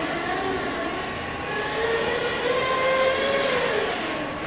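Drive motors of a four-wheeled Pioneer 3-AT robot whining as it drives across the floor, the pitch wavering up and down as its speed changes.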